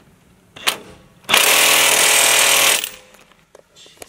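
Cordless impact wrench hammering: a short burst about a second in, then a longer run of about a second and a half.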